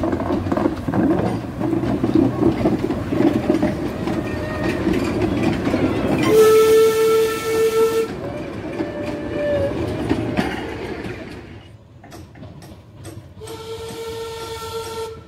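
Narrow-gauge steam locomotive, a Hunslet 4-6-0 tank, running past with its train of coaches for the first several seconds. Its whistle sounds twice, a steady note about six seconds in lasting under two seconds, and again near the end.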